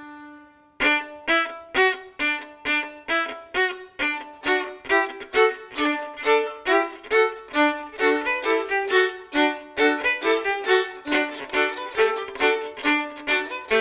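Three violins playing together in martelé bowing: hammered, sharply accented and separated strokes, about three a second, starting about a second in after a brief pause.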